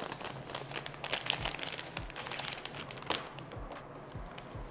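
Crinkling of a plastic anti-static bag being handled, with scattered crackles and a sharper click about three seconds in.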